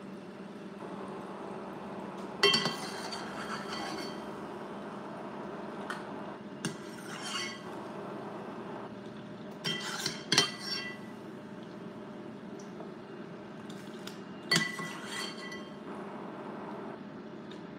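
A metal slotted spoon clinks against stainless steel pans while grapes are lifted out of boiling water. There are several sharp, ringing taps spread through, the loudest about two and a half and ten seconds in, over a steady background hum.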